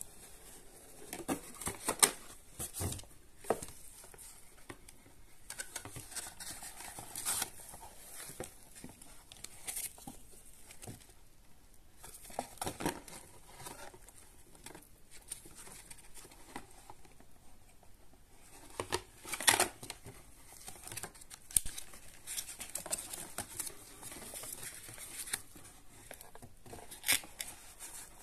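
Cardboard packaging being handled with gloved hands: the insert's flaps rustling and scraping as a plastic power adapter and its cable are worked out of their compartment, with irregular sharp scrapes and knocks, the loudest about two-thirds of the way through.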